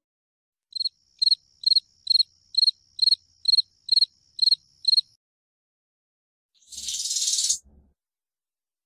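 Insect-like chirping: ten even, high chirps, a little over two a second, over a faint steady high whine. About two seconds after they stop comes a short, loud burst of hiss lasting about a second.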